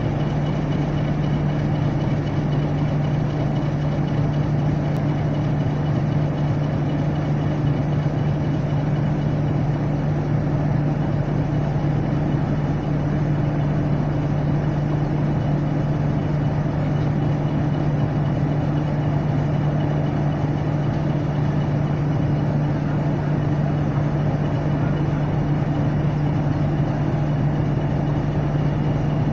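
A diesel locomotive engine running steadily at idle: an unchanging low hum with a faint high whine above it.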